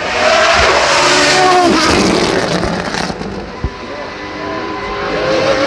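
Racing car engine at high revs going past, its pitch gliding and dropping around two seconds in. It then runs on more quietly, with a single sharp crack a little over halfway through.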